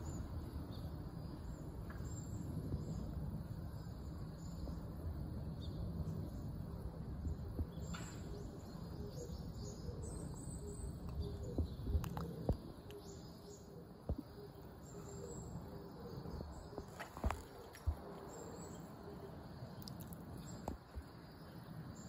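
Steady low background rumble with faint, short, high bird chirps now and then and a few soft clicks.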